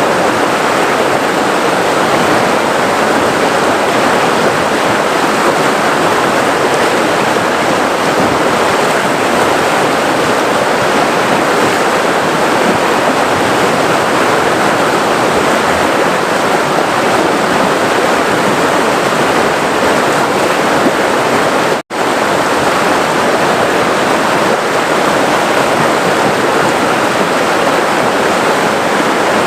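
River water flowing and rushing steadily. The sound cuts out for an instant about three quarters of the way through.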